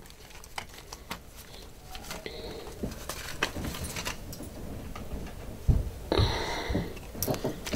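Handling noise from a tarot deck and its box being moved about: scattered small clicks and rustles, with a few soft low thumps and a brief louder rustle about six seconds in.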